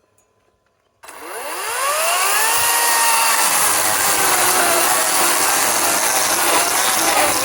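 EGO 18-inch cordless chainsaw starting up about a second in with a rising whine, then running at full speed and cutting wood, its pitch dipping and wavering under load.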